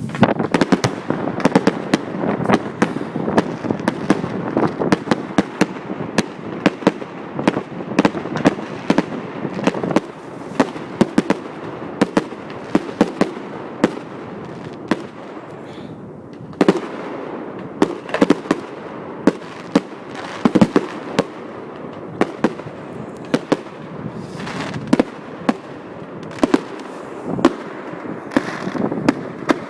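Fireworks display: many sharp bangs and pops from bursting shells in quick succession, several a second, over a continuous low rumble, with a slightly sparser stretch in the middle.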